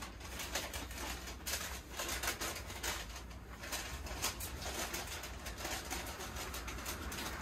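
Dorayaki pancakes cooking on a hot griddle: soft, scattered crackling over a steady low hum.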